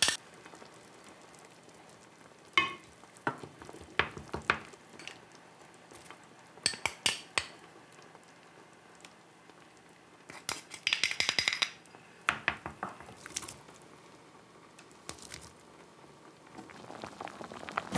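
Scattered clinks and taps of a small glass bowl and spoon against a stainless-steel pot as seasonings are tipped in, with a longer, denser clatter of handling about ten to eleven seconds in.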